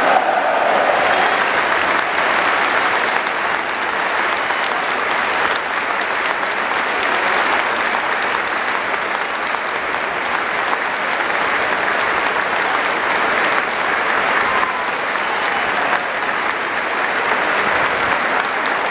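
Football stadium crowd applauding steadily.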